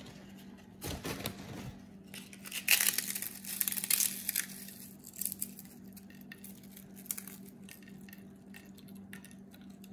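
Potato chips crushed between the fingers: dry crackling and crunching, loudest a few seconds in, then thinning to scattered small crackles as the crumbs are sprinkled. A faint steady hum runs underneath.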